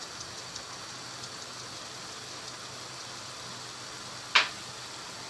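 Eggs and spinach cooking in a frying pan: a low, steady sizzle with a few faint crackles near the start, and one sharp click a little over four seconds in.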